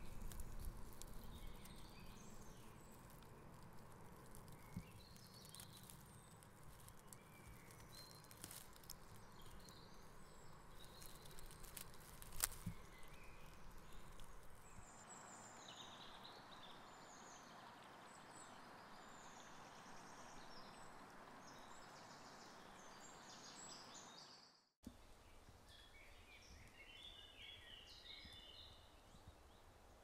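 Quiet outdoor ambience with faint, scattered bird chirps and one sharp little click about twelve seconds in.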